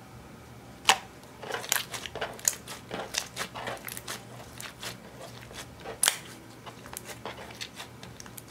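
Thick glossy slime squeezed and kneaded by hand, giving off a run of sharp, wet clicks and crackling pops as air pockets in it burst. Two pops stand out as loudest, about a second in and about six seconds in.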